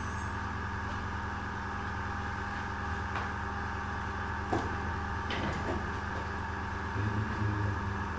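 Small airbrush compressor running steadily, pumping up air pressure, with a few light clicks and knocks.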